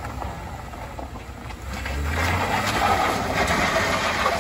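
A small MPV's engine running as the car drives across the rough gravel road close by, getting louder and rougher about two seconds in as it nears and turns.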